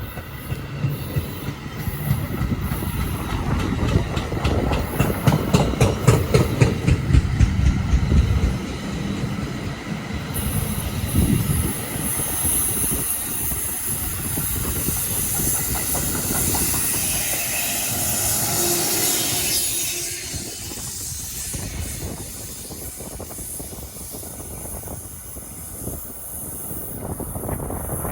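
A train passing on the main line: rapid, evenly spaced clicks of wheels over rail joints, followed by a high hiss as the cars go by, fading away about two-thirds of the way through.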